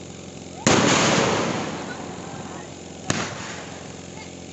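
Fireworks exploding: a loud burst about half a second in that fades away over a couple of seconds, then a single sharp bang about three seconds in.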